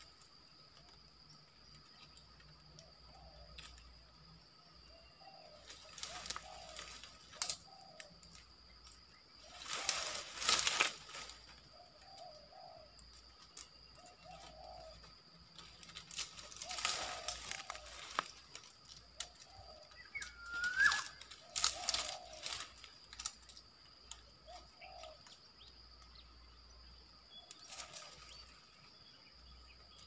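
A dove cooing over and over, short low coos every second or two. Several times, dry oil-palm fronds rustle and crackle loudly as they are handled, the loudest about ten and twenty-one seconds in. A brief bird chirp sounds near the end.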